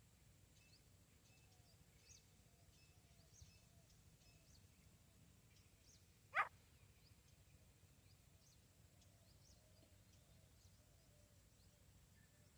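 Faint small birds chirping in the distance, with one short sharp sound about six seconds in.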